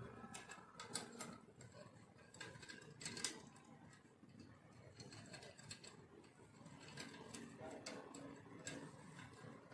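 Faint, irregular metallic clicks and ticks as screws are worked with an Allen key to fix a leg onto a steel printer stand, the sharpest click about three seconds in.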